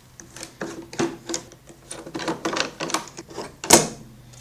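Metal screw clamps being loosened and taken off a plywood frame: a run of irregular clicks and knocks, with one louder knock near the end.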